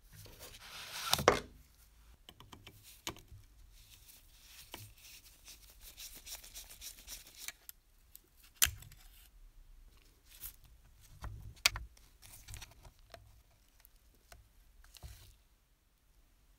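Handling noise from a rusty pre-war JEP clockwork locomotive turned over in gloved hands: rubber gloves rustling, with scattered small metallic clicks and knocks from its seized parts. A louder rustle comes about a second in.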